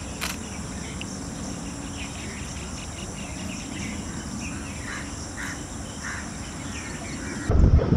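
Forest ambience: a steady high drone of insects, with scattered short bird chirps over it. A louder sound cuts in just before the end.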